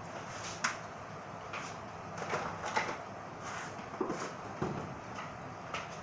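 Kitchen handling sounds: a scatter of light knocks, clicks and clatters of utensils and containers over a steady background hiss.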